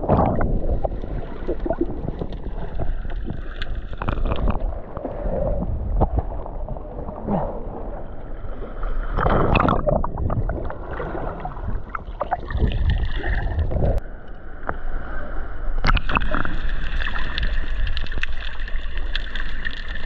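Sea water heard from just below the surface: muffled rushing and bubbling as people jump into the sea, with a splash right at the start and louder surges of bubbling around the middle and near the end.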